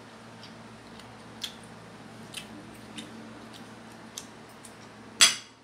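Metal spoon and fork clicking lightly against a plate a few times, then one loud, ringing clink about five seconds in.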